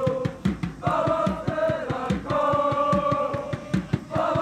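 Supporters in the stands singing a chant together over a steady drum beat, the singing pausing briefly between lines.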